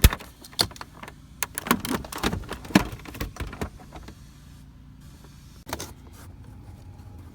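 Quick clatter of sharp clicks and small knocks, like small tools and parts being handled, for about the first four seconds. A short burst of clicks comes near six seconds, over a low steady hum.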